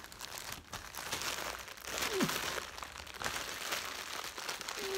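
Plastic packaging crinkling and rustling in irregular bursts as it is handled and unwrapped by hand.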